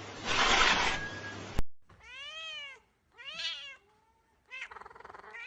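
A burst of rushing noise that cuts off suddenly, then a domestic cat meowing twice, each meow rising and then falling in pitch, and a rougher, shorter cry near the end.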